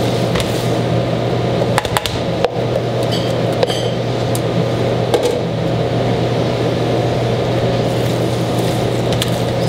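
Steady mechanical hum of commercial kitchen equipment, with a few short clicks and scrapes of a spatula stirring tuna salad in a plastic mixing bowl, about two seconds in and again about five seconds in.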